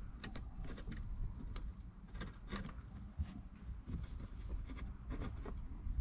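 A few faint clicks and rubbing of small plastic parts as a new grommet is forced into the end of the gear shift cable with the kit's installer tool, over a low background rumble.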